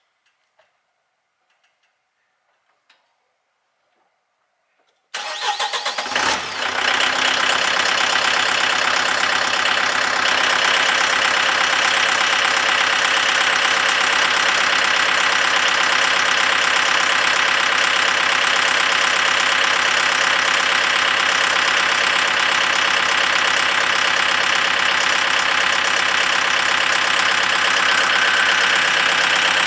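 An engine cranks and catches about five seconds in, stumbling briefly, then settles into steady running with a constant whine over it. Before it starts there are only a few faint clicks.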